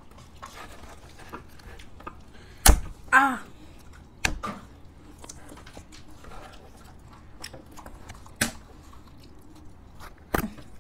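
People eating ice cream from small tubs with wooden spoons, with several sharp knocks as the tubs and lids are handled and set on the table, the loudest about three seconds in. A brief murmur of a voice follows just after it.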